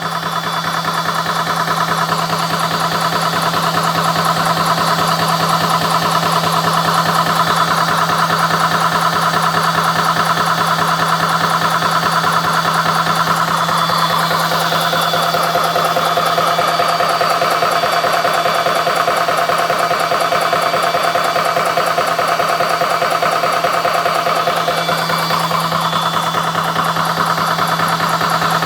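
CS6 Pro portable high-pressure PCP air compressor running steadily under load while it pumps up an air rifle, with a constant hum.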